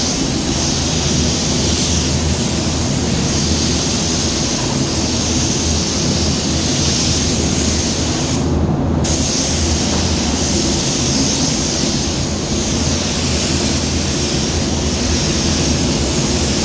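Iwata WS-400 spray gun hissing steadily as paint is sprayed, over the steady hum of the spray booth's air fans. The hiss cuts out briefly about halfway, as the trigger is let go between passes, then starts again.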